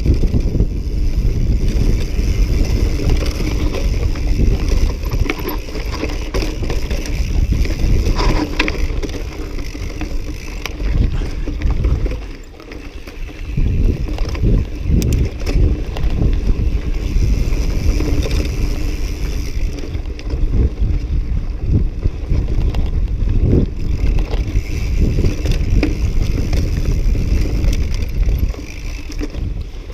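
Mountain bike ridden fast down a dirt forest trail: wind buffeting the microphone, tyres running over dirt and roots, and the bike rattling over bumps, easing briefly about twelve seconds in.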